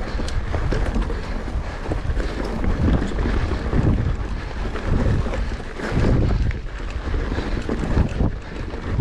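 Wind buffeting the microphone: a loud, gusty low rumble that swells and eases irregularly.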